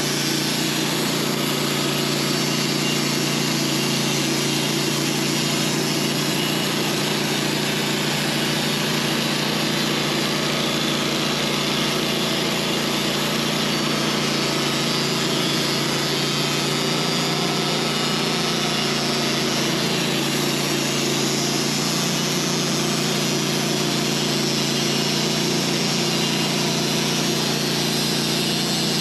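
Sawmill running under power and sawing a honey locust log: a constant engine drone with an even hiss over it, unchanging in pitch and level.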